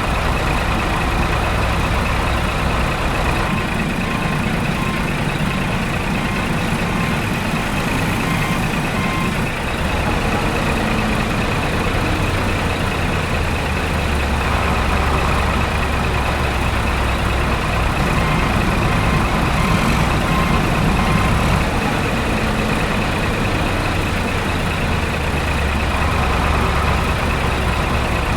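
Steady heavy diesel engine running, as of an excavator at work, its low rumble swelling and easing every few seconds.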